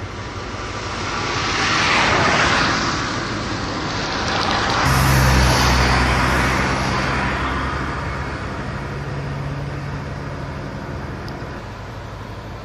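Road traffic passing close by: a vehicle's tyre and wind noise swells and fades about two seconds in, then a second vehicle with a low engine hum passes about five seconds in and fades away.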